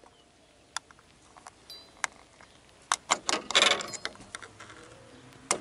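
Scattered sharp metallic clicks and clinks of bolts and a hand tool against a steel light-bar mounting bracket on a Jeep Wrangler's windshield pillar, with a busier stretch of rattling about three seconds in.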